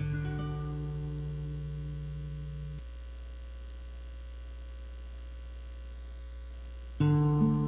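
Steady low hum. A held chord of the guitar music sounds over it and stops about three seconds in, and the guitar music comes back in near the end.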